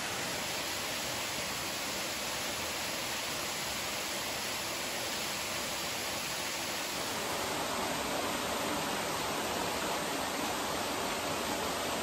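Steady rush of falling water from a small waterfall beside an open-air hot-spring bath, mixed with hot-spring water pouring into the bath from its spout. It grows a little louder about seven seconds in.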